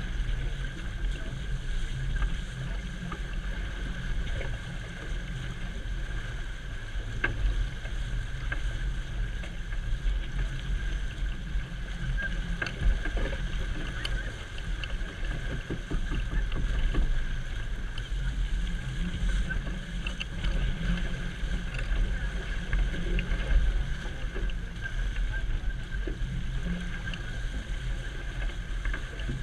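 Steady rush of water in the wake of a sailboat under way, with wind buffeting the microphone.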